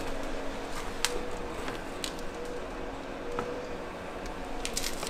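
Quiet room tone: a faint steady hum with a few light clicks, about one each near the first and second seconds and a short cluster near the end.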